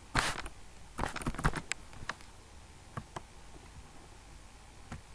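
Computer keyboard and mouse being used: a short scuffling tap just after the start, a quick run of sharp clicks about a second in, then a few single clicks.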